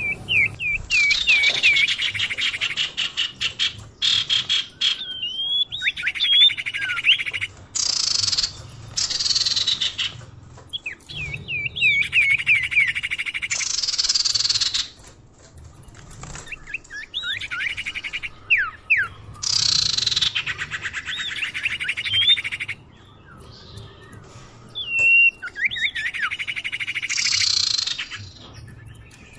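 Common iora (cipoh) calls used as a bird lure: runs of clear whistled notes that slide up and down, mixed with a harsh buzzy chatter. The phrase comes in repeated bouts a few seconds apart.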